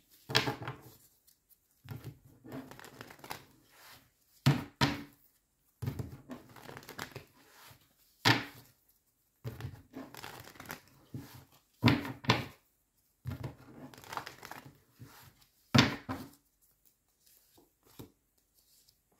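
A deck of tarot cards shuffled by hand in repeated rustling bursts, with a sharp snap of the cards every few seconds. Near the end the shuffling stops and a few light ticks follow as cards are drawn and laid on the table.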